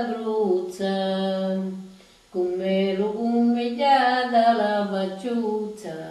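Elderly woman singing a Sicilian lullaby (ninna nanna) unaccompanied. Two long, slow phrases with a short breath between them; the second phrase falls in pitch near the end.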